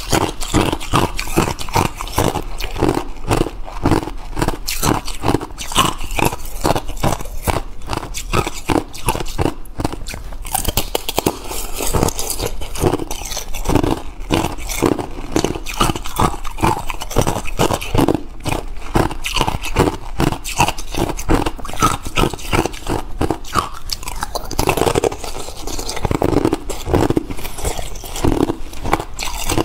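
Clear ice being bitten and crunched in the mouth, close to a clip-on microphone: a continuous run of sharp crunches, several a second.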